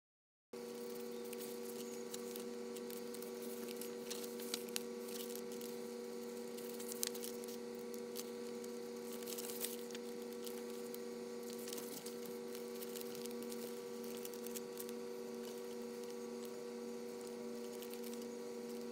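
A steady hum of a few held tones, with faint scattered clicks and rustles from paper pages being handled.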